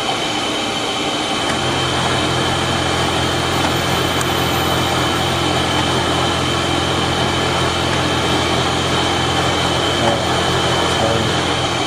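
Manual engine lathe running a threading pass: a steady low machine hum starts about a second and a half in and runs until near the end, over a constant high background whine.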